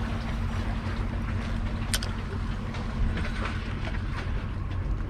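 Wind rumbling on the microphone with sea water washing against the concrete tetrapods of a breakwater. A faint low hum stops about two seconds in, just as a single sharp click sounds.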